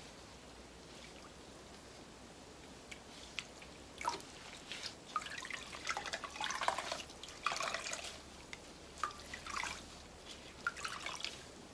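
Wet wool yarn squeezed out by gloved hands over a stainless steel pot, with mordant liquid dripping and trickling back into the pot in irregular splashes from about four seconds in.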